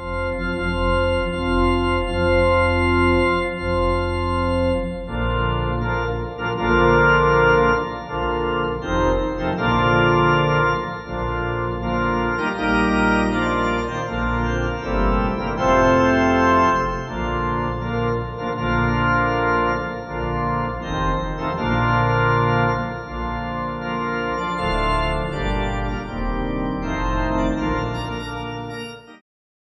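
Organ music: a long held chord opens, then a moving melody plays over sustained bass notes, and the music stops abruptly shortly before the end.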